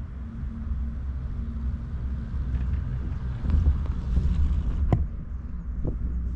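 Six-seat detachable chairlift running, heard from the chair: a steady low rumble of the haul rope and grip that swells about three and a half seconds in, with a few sharp clacks, the loudest near five seconds in, as the chair passes over a tower's sheaves.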